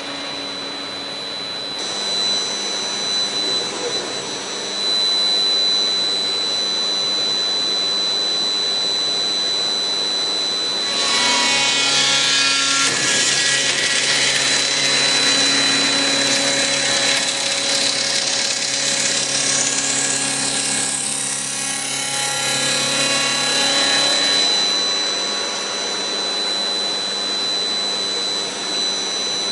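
Routech Oikos CNC beam-processing centre's spindle running with a steady high whine. For about thirteen seconds in the middle its tool cuts the timber beam, adding a louder rush of cutting noise and a whine that rises in pitch, before dropping back to the steady whine.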